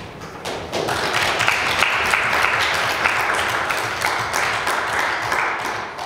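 Audience applauding: a dense patter of clapping that builds within the first second, holds steady, and dies away near the end.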